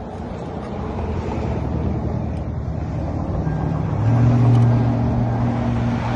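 A motor vehicle's engine running, growing gradually louder, with a steady low hum that is loudest about four seconds in.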